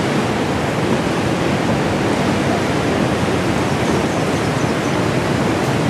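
Steady rush of white water from river rapids.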